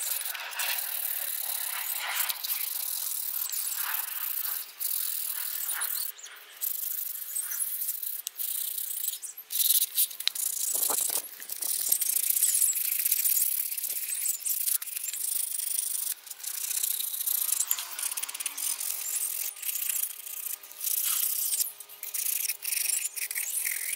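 Sandpaper rubbed by hand over a carved birch kuksa cup for its final smoothing: a dry scratching hiss in repeated strokes, broken by brief pauses.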